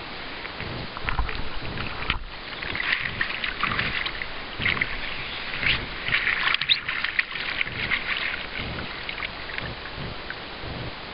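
Water splashing and dripping as a hooked fish thrashes at the surface and is scooped up in a rubber-mesh landing net. The splashing comes in irregular spatters, busiest in the middle.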